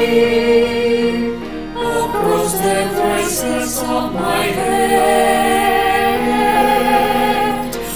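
Mixed choir of men and women singing slow, sustained chords, moving to a new chord about a second and a half in.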